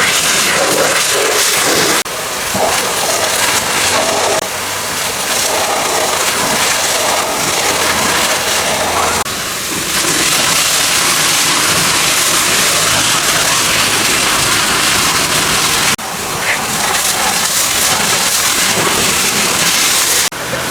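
High-pressure water spray hitting a car's body, a loud steady hiss. It changes abruptly every few seconds as the clips cut from one spot to another.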